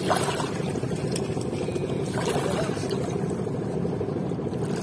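A boat's engine running steadily, with water splashing against the hull at the start and again about two seconds in.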